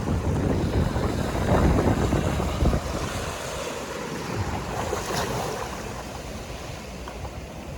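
Sea surf washing in, with wind buffeting the microphone. The low rumble is heaviest for the first few seconds, then eases to a steadier hiss of water.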